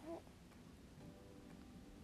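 Near silence: faint room tone, with one brief pitched chirp just after the start.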